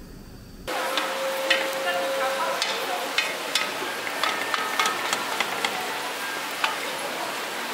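Cooked rice sizzling and crackling in a hot pot as a plastic rice paddle presses and spreads it into a layer for rice crust (nurungji), with many sharp ticks and pops. A brief low rumble gives way to it suddenly less than a second in.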